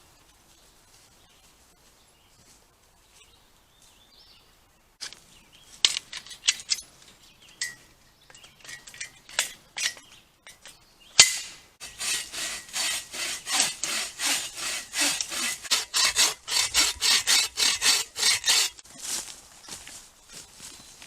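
Hand saw cutting through wood, with even back-and-forth strokes at about three a second for several seconds. Before that come some scattered clicks and rubbing and a single sharp crack.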